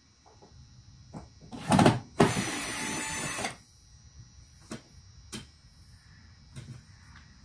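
A cordless power tool, such as a drill or impact driver, run in two short bursts, a brief one about a second and a half in and a steady one of just over a second right after, loosening a seat-belt anchor bolt. Light clicks and clinks of tools and parts follow.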